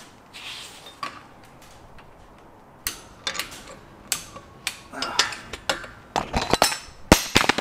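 Sharp metallic clicks and clinks of a torque wrench being ratcheted and fitted on the lower cylinder hold-down nuts of a Franklin 165 aircraft engine. The clicks come irregularly from about three seconds in and are closest together and loudest near the end.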